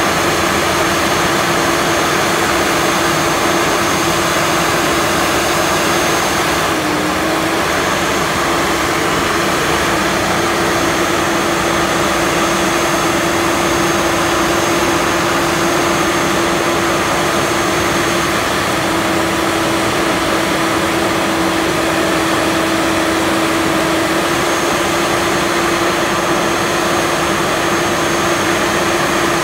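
Guntert & Zimmerman ET 7300 wheel trencher running steadily as its bucket wheel digs through sandy soil: a constant machine drone with a steady whine over it that dips briefly about seven seconds in.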